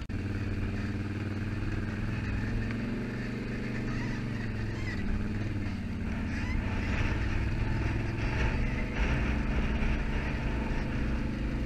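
ATV engine running at low speed, first near idle and then pulling along a rocky trail. It gets a little louder, with rougher noise added, from about six seconds in.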